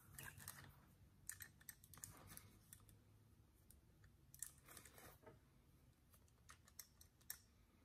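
Faint, irregular clicks and light rustles from handling a small spring-clamp curling iron as a section of hair is wrapped around its barrel, over quiet room tone.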